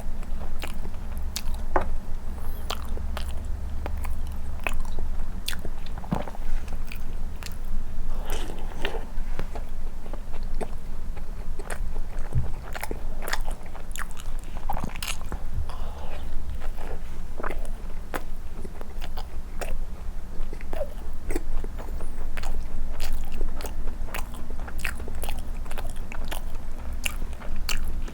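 Close-miked chewing and biting of soft, milk-soaked cream bread: a run of wet mouth clicks and smacks over a steady low hum.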